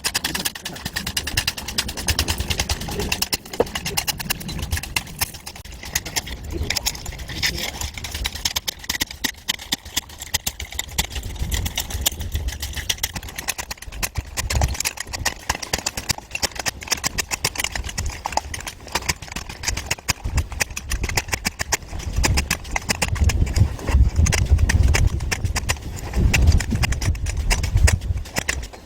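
Rapid, continuous rattling knocks from a concrete compaction tool at work, with a low rumble that grows louder near the end.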